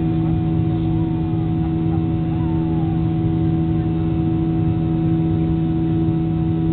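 Boeing 737-800 cabin noise during the climb after takeoff, heard from a window seat beside the CFM56-7B engine: a loud, steady rushing drone with a constant low hum under it.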